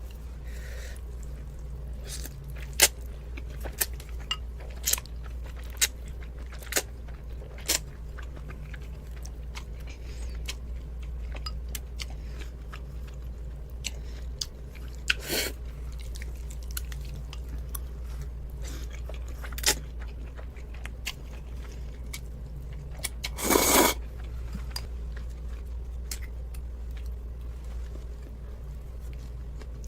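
Close-miked eating: chewing with sharp crunchy clicks about once a second at first, then scattered, and one longer, louder noise of about half a second about 24 seconds in, over a steady low hum.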